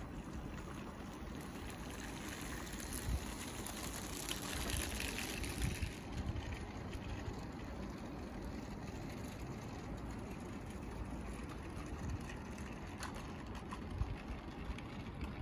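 Wind rumbling on the microphone over outdoor ambience, with a gust about four seconds in and a few faint light clicks, as a 16mm scale model diesel locomotive and its wagons run along the garden track.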